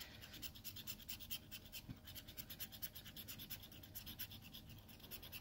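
A coin scratching the coating off a scratch-off lottery ticket in rapid, faint strokes.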